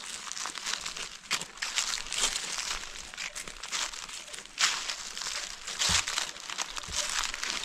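Footsteps crunching and crackling through a thick layer of dry fallen leaves, one step after another.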